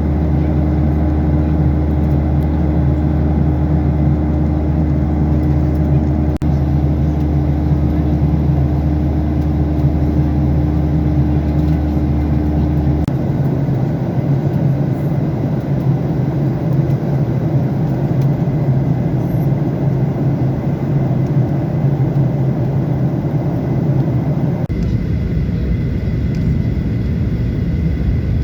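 A vehicle running steadily, a low engine hum over a constant rushing noise. The hum changes abruptly twice, about 13 s and about 25 s in.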